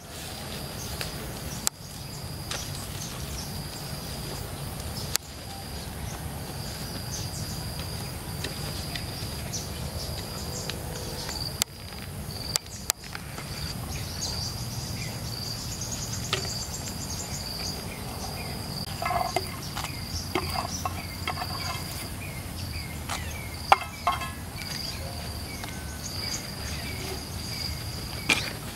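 Steady chorus of insects chirring throughout, with short knocks and clicks of clay pots and a mortar being handled, clustered later on.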